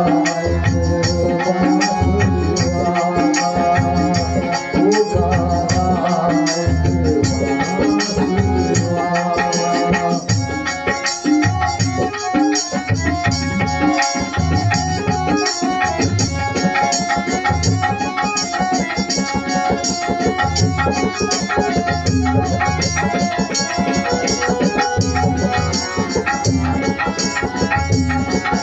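Devotional bhajan music: a hand drum played in a quick, steady rhythm over sustained held instrumental tones, with a rattling percussion layer.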